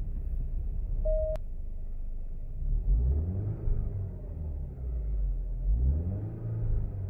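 2018 Alfa Romeo Giulia's engine running in Park, heard from inside the cabin, revved up and back down twice: about three seconds in and again near the end. A short beep sounds about a second in.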